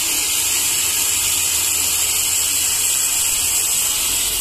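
Sawmill machinery running steadily: an even high-pitched hiss over a low motor hum.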